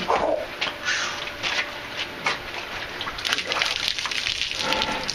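Water from a plastic bottle dumped over a person's head and splashing onto him and the patio. The splashing is a dense, crackly spatter from about three seconds in.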